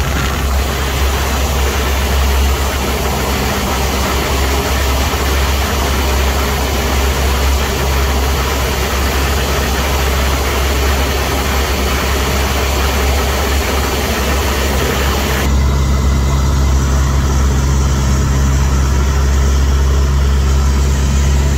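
Single-engine propeller airplane's engine and propeller droning steadily, heard inside the cockpit in flight, with a strong low hum. About fifteen seconds in, the sound turns duller and deeper.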